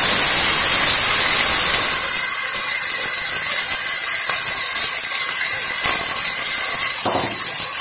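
Chicken strips and sliced onion sizzling in hot oil in a pot: a steady frying hiss that eases a little about two seconds in.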